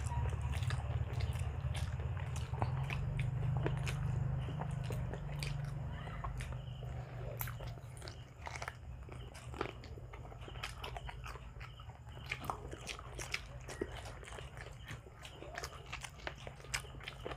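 Close-miked mouth sounds of people eating grilled barbecue by hand: chewing, biting and many sharp wet smacks and clicks. A low hum runs underneath, louder in the first few seconds.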